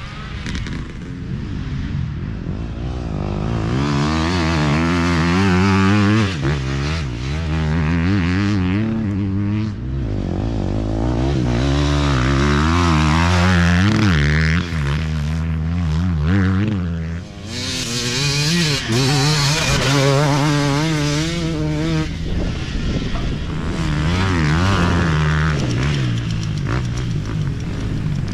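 Dirt bikes racing past one after another on a grass track, engines revving hard and repeatedly rising and falling in pitch as the riders work the throttle and shift gears.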